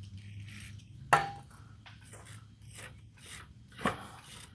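A tool scraping in short strokes at the built-up grease and metal shavings caked on a bandsaw guide bearing, with two sharp clicks: the loudest about a second in with a brief ring, and another near the end.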